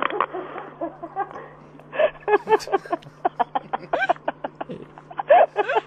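Hearty laughter: a breathy start, then a run of quick short bursts of voice, over a steady low hum.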